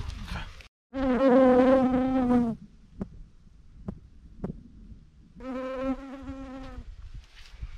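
A flying insect buzzing close to the microphone, twice: a steady buzz of nearly two seconds starting about a second in, then another of about a second and a half past the middle.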